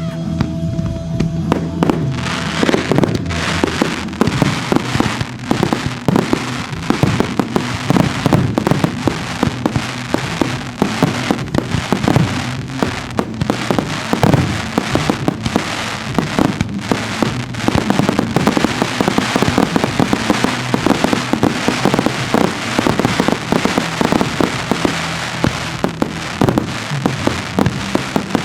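Fireworks display at full intensity: many shell bursts and crackling reports in rapid, dense succession, starting about two seconds in, over music with a steady low backing.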